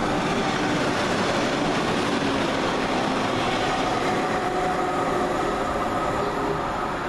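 Northern Class 195 diesel multiple unit running past along the platform: wheels on the rails and engine noise, with a steady whine, easing slightly near the end.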